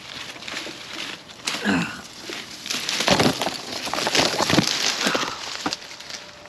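A person clambering in through a tight entrance: irregular scuffing, scraping and crunching of feet and clothing, busiest and loudest in the middle.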